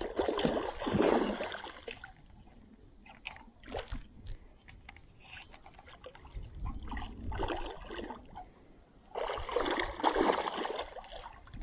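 A hooked large spotted seatrout splashing and thrashing at the water's surface as it is fought on a spinning rod, in two bursts: one in the first two seconds and another about three-quarters of the way through. Between them come small clicks and rustles of the reel and handling.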